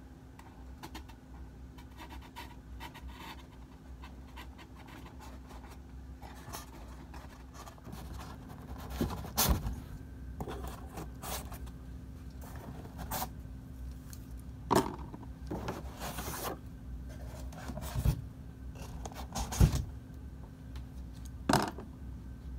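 Workbench handling noises: scraping and several sharp knocks, spaced a few seconds apart and mostly in the second half, over a steady low hum.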